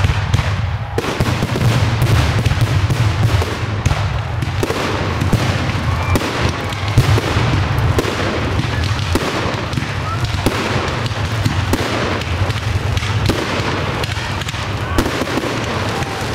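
Professional display fireworks going off in rapid succession: a dense, unbroken run of sharp bangs and crackling bursts over a steady low rumble.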